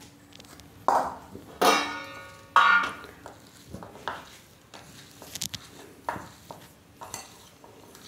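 Stainless-steel dishes knocked and set down on a counter: three clangs with a ringing tail in the first three seconds. Then soft crumbling and light taps as crumbled paneer is mixed by hand in a steel bowl.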